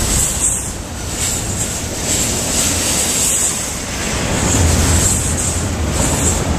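Norfolk Southern double-stack intermodal freight train passing close by: a steady rumble and rush of its wheels and container cars rolling on the rails.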